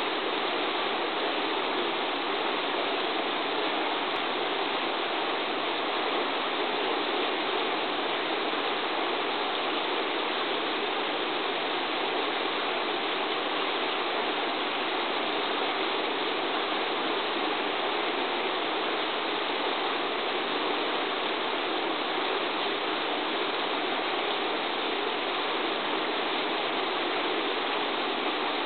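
Steady rushing of flowing river water, an even hiss with no change in level.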